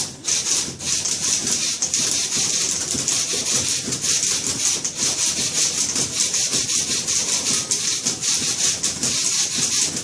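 Several typewriters played together as a percussion ensemble, a dense, continuous clatter of key strikes with a short dip just after the start.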